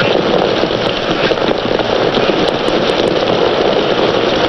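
Steady rushing noise of wind and rain in a squall at sea, with no breaks or separate events.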